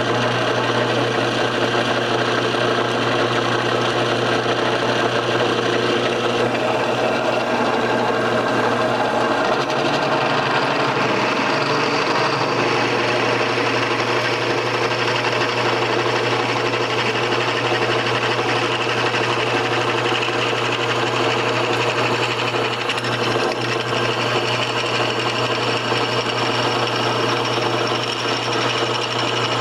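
Drill press motor running steadily, switched on just before.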